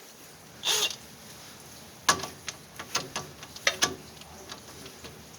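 Hand tools being handled against metal: a short scuffing noise about a second in, then about half a dozen separate sharp metallic clinks and knocks over the next two seconds, some ringing briefly.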